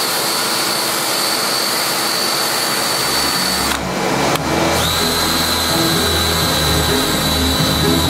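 A wire brush attachment spinning on a power tool, running with a steady high whine as it scours a wood test piece, wearing away the softer wood between the grain to make the wood look old. The whine breaks off just before four seconds in and picks up again a little lower in pitch. Background music comes in partway through.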